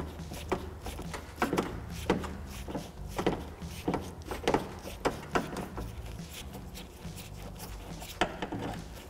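Phillips screwdriver backing screws out of a car door latch: a run of irregular small clicks and taps, dense for the first five seconds or so, then one more cluster near the end.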